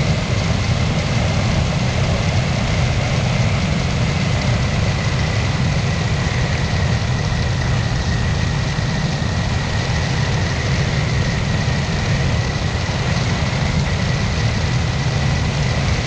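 Weight-shift microlight trike in steady cruise: its engine and pusher propeller drone evenly with a faint high whine, under a constant rush of wind over the microphone.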